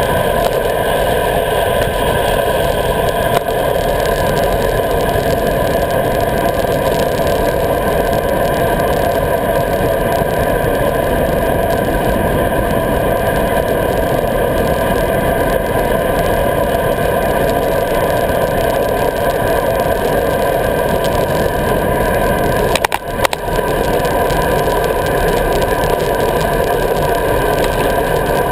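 Steady wind and road noise on a bicycle-mounted action camera riding along a paved lane, with one short jolt late on.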